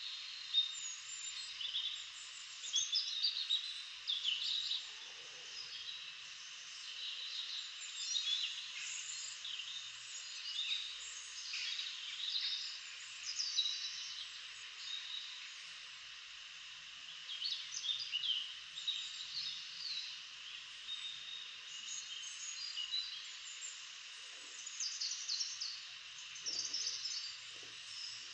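Birds chirping and singing in short scattered phrases over a steady hiss.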